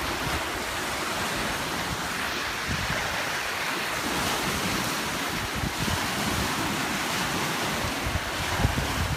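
Small lake waves breaking and washing onto a pebble shore, a steady hiss, with wind rumbling on the microphone at times.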